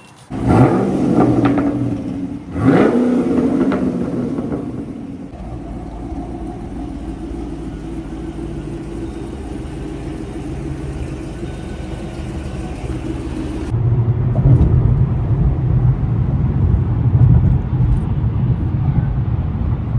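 Pontiac G8 GT's 6.2 L LS3 V8 through a Corsa cat-back exhaust, revving twice near the start, then running steadily at cruise. About fourteen seconds in the drone turns deeper and louder.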